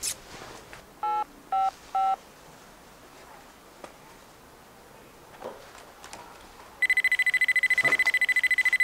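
Three short keypad beeps from a mobile phone being dialled, about a second in. Nearly two seconds before the end, a mobile phone starts ringing with a loud, rapid, high trilling tone.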